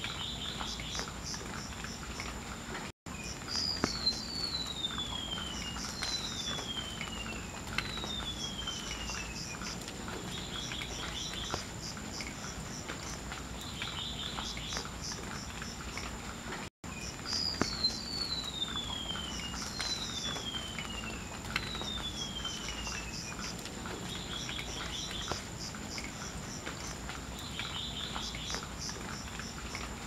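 Golden-bellied gerygone singing: runs of three thin, high whistles, each sliding down in pitch, heard twice, with short buzzy notes in between. A steady high insect drone runs underneath.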